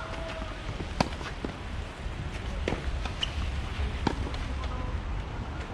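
Tennis rally on a clay court: rackets striking the ball with sharp pops, the strongest about a second in and others near three and four seconds in, with softer ball bounces between. A low steady rumble lies underneath.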